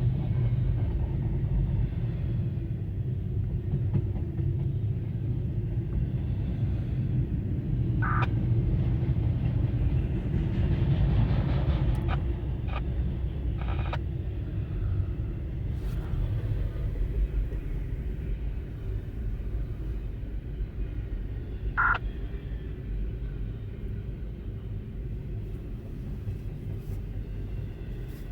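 Norfolk Southern double-stack intermodal freight train rolling past, a steady low rumble of wheels on rail. Two brief high squeals cut through, about eight seconds in and again near the end.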